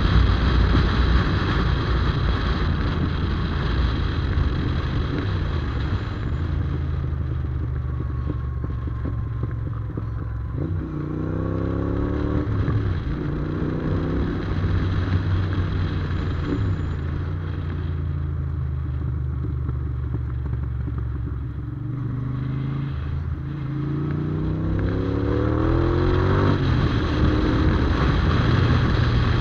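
Yamaha TDM 850 parallel-twin motorcycle engine running under way, heard from on board. The engine pitch rises twice, about a third of the way in and again near the end, as the bike accelerates.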